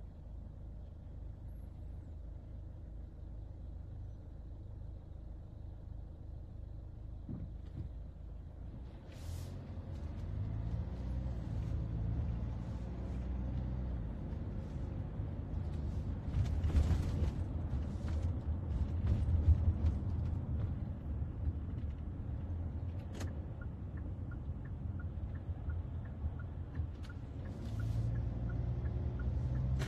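Low rumble of a moving car heard from inside the cabin, growing louder about ten seconds in, with a few sharp knocks and a run of light, regular ticks near the end.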